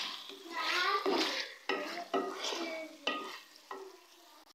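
Wooden spatula stirring and scraping chicken masala against the side of a metal pot, with the food frying. The scraping strokes come about twice a second and die away near the end.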